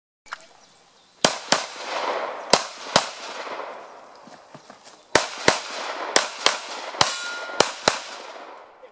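A pistol firing a string of about a dozen shots, mostly quick pairs, with a gap of about two seconds in the middle. The shots echo off the range berm.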